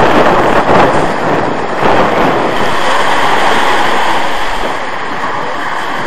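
Small sea waves breaking and washing up on the shore, with wind buffeting the microphone. Loudest in the first couple of seconds, easing slightly after about four and a half seconds.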